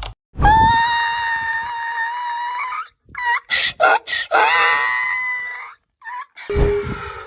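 Donkey making high, screaming calls: one long held cry, a few short ones, then another long cry.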